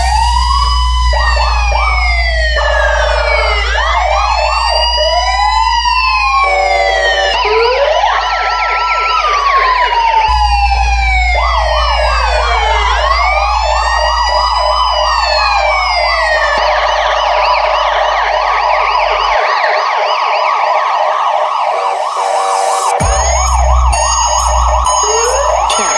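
Electronic police siren cycling through several patterns: long rising-and-falling wails, fast yelps and warbles, with several tones layered at once. It switches abruptly from one pattern to the next every few seconds over a steady low hum.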